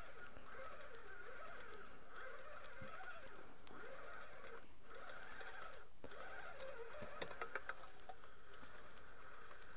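Spinning fishing reel being cranked to bring in a hooked walleye: a wavering whine that rises and falls with the cranking speed, breaking off twice when the cranking pauses. A few quick clicks come near the end.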